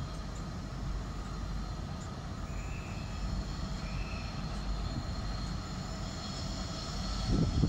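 Class 66 diesel-electric freight locomotive, with its two-stroke EMD V12 engine, approaching with a container train: a distant low engine rumble that grows louder near the end.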